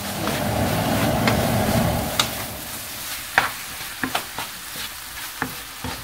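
A black plastic spatula stirring and scraping scrambled egg and vegetables around a nonstick frying pan over the sizzle of frying. Dense scraping in the first two seconds, then several sharp taps of the spatula against the pan.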